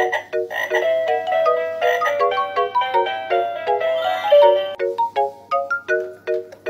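Winfun Baby Fun Flashing Keyboard toy playing its cheerful electronic melody: bright beeping notes, often two or three at once, stepping up and down at a quick pace. Near the end the notes come singly with light clicks among them.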